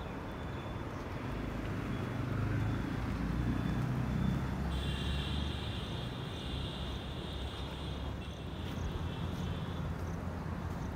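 Outdoor ambience: a low rumble that swells and eases in the first half, with a steady high insect buzz coming in about halfway through and short repeated chirps near the end.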